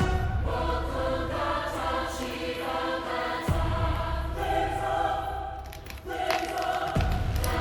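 Background music with a choir singing held notes over a low bass.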